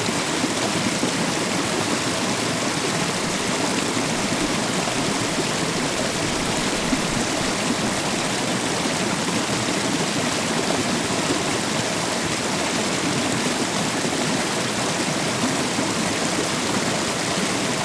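Waterfall: a steady, even rush of falling water without let-up.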